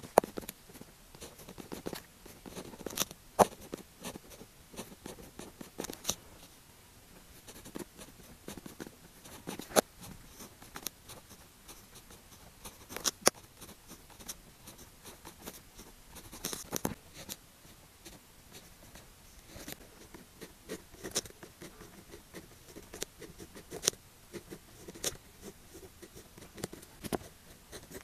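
Pen writing Chinese characters on paper: short scratchy strokes broken by sharp ticks, coming in stop-start runs.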